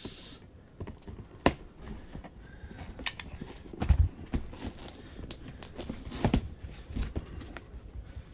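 A cardboard shipping box being opened by hand: a box cutter slicing through the packing tape, then the flaps pulled up, with irregular knocks, scrapes and cardboard rustles.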